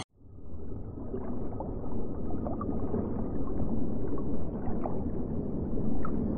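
Muffled underwater ambience: a steady low water rumble with small scattered bubble blips, fading in over the first second after a sudden cut.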